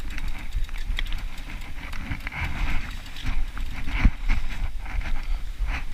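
Mountain bike riding over a rough dirt trail: tyres rolling on the ground, with uneven knocks and rattles from the bike as it goes over bumps. A low rumble of wind and jostling on the microphone runs under it.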